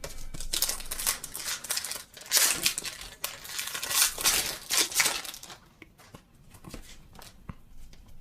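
A Pokémon trading-card booster pack's wrapper being crinkled and torn open by hand, in a run of irregular rustling bursts that die down after about five seconds into quieter handling with a few small clicks.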